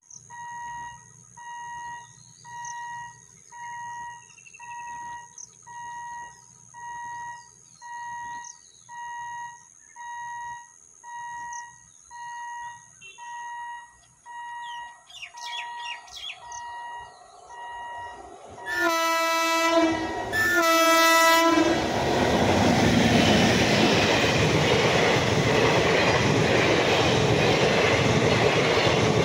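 Indian Railways express passenger train approaching: two loud locomotive horn blasts of about a second each, then the rushing noise of the coaches' wheels and bodies as the train passes close by at speed. Before the horn, a quiet pulsing beep repeats about once a second.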